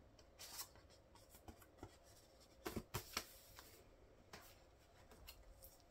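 Faint taps, clicks and rustles of hands handling a cardboard album photobook and its CD, with a few sharper knocks about three seconds in.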